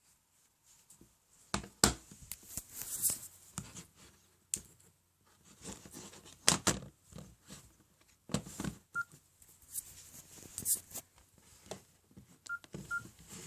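Nokia N97 Mini mobile phone being handled and operated: irregular clicks and taps of fingers and casing, and a few short high keypad beeps in the second half.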